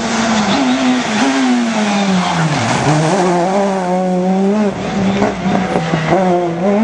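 Rally car engine screaming at high revs through a corner. It drops sharply about two and a half seconds in as the driver lifts, then climbs back, dips again and rises near the end, over the hiss of tyres sliding on the road.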